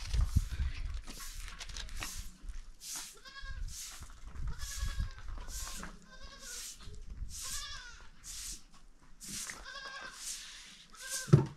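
A goat bleating over and over, short calls about one every three-quarters of a second. A single sharp thump near the end is the loudest sound.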